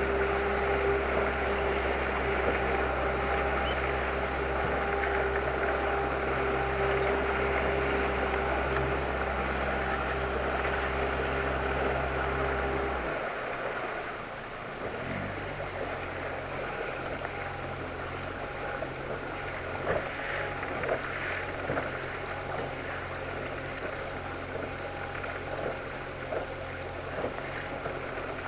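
Outboard motor pushing an inflatable boat at steady trolling speed, with water wash. About 13 seconds in the engine note drops suddenly as it is throttled back, then runs on lower and quieter, with a few light knocks later.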